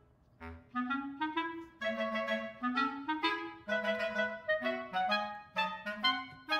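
Background music: a lively melody of short, quick notes over a lower accompanying line, with a brief break about half a second in.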